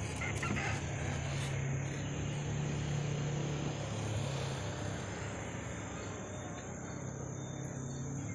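Steady high-pitched drone of insects calling in the surrounding forest, over a constant low hum.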